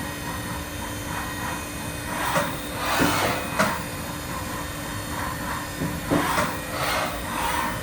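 Haas vertical machining center running: a steady machine whine with short bursts of hissing, scraping noise every second or so.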